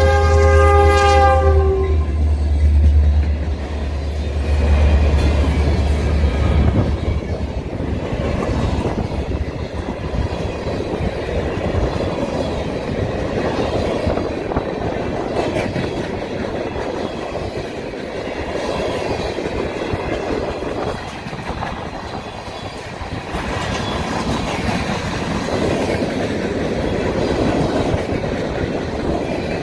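CN EMD SD60 diesel locomotive's horn cutting off about a second and a half in as the locomotive passes, its diesel engine rumbling low for a few more seconds. Then a long train of empty centerbeam flatcars rolls past with a steady rumble of wheels on rail and clickety-clack.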